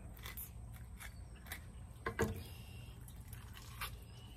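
Fillet knife slicing along a crappie's backbone, faint wet scraping and squishing, with a few soft clicks and knocks, the loudest about two seconds in.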